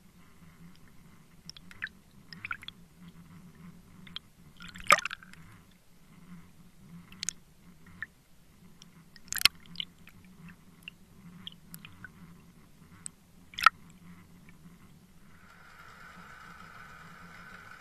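Underwater sound picked up by a Water Wolf fishing-line camera: a steady low hum with scattered sharp clicks and knocks, the loudest three about 5, 9.5 and 13.5 seconds in. A higher steady hiss begins near the end.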